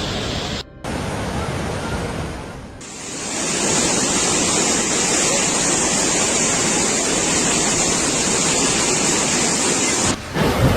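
Steady rushing of water. A brief drop under a second in, then a louder, hissier rush from about three seconds in.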